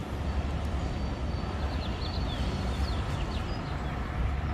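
Outdoor city ambience: a steady low rumble, with a few short high bird chirps about halfway through.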